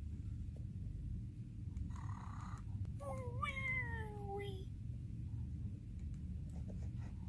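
Cartoon snoring sound effect: a short snore, then one long whistling tone with a brief upward jump that slowly falls in pitch. A steady low hum sits underneath.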